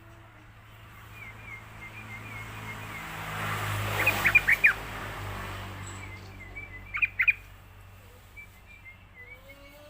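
Yellow-vented bulbul (trucukan) calling: a quick burst of four sharp, falling notes about four seconds in, then three more about three seconds later, over fainter repeated chirping. A hiss swells and fades in the middle, under a steady low hum.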